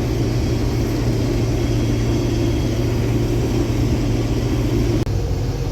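Steady drone of a farm machine's engine running, heard from inside the cab. The tone changes abruptly about five seconds in.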